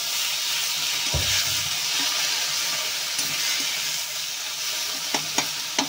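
Chopped tomato, green chillies, garlic and coriander sizzling in hot oil in a metal kadhai while a spatula stirs them. There is a low thud about a second in, and a few sharp taps of the spatula on the pan near the end.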